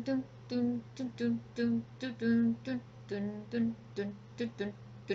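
A woman humming a tune in short, separate notes, about three a second, mostly on one pitch with a few a step lower.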